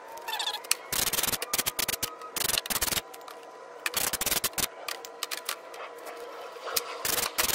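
Aerosol cleaner sprayed onto the mating surface of an ABS pump unit in four short hissing bursts, with a toothbrush scrubbing the surface between them.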